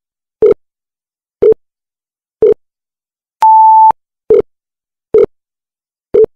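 Countdown timer sound effect: short electronic beeps about once a second, with one longer, higher-pitched beep about three and a half seconds in.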